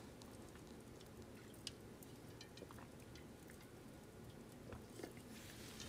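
Near silence, with a few faint clicks and small mouth sounds from drinking out of an aluminium pot.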